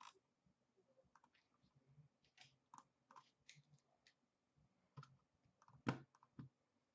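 Faint, scattered light clicks and taps, with one louder click about six seconds in.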